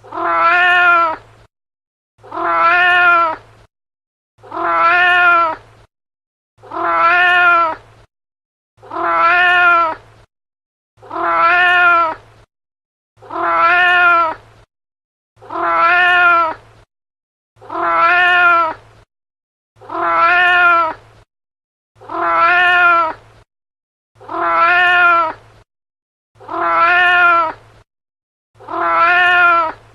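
A domestic cat meowing: the same meow repeated about every two seconds, each one a little over a second long and arching up and down in pitch.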